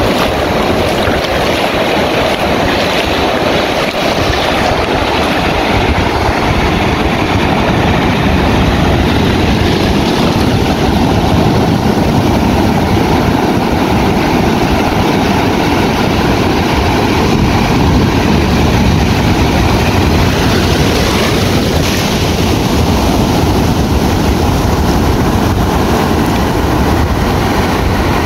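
Ocean surf washing and breaking in a steady loud rush, with wind rumbling on the microphone.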